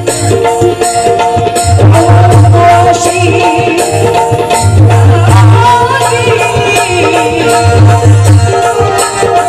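Music in the style of a Marathi devotional bhim geet: hand drums keep a repeating beat under held melody notes, with a wavering melody line coming in about three seconds in and again around six seconds.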